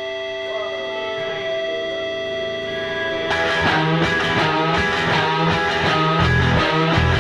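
Background music: a held chord swells in, then about three seconds in a rock band with guitar comes in on a steady beat.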